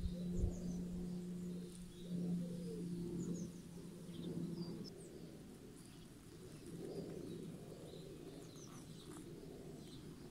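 House sparrows chirping, short high chirps scattered throughout. A low steady hum runs underneath and stops about halfway through.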